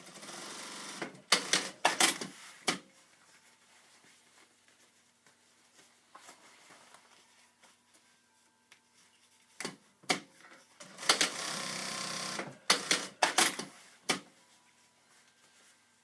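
Brother S-7000DD-403 direct-drive industrial lockstitch sewing machine stitching in two short runs, each with a cluster of sharp clicks around it from the automatic back-tack and thread trimmer. It is almost silent between seams, since its servo motor runs only while sewing.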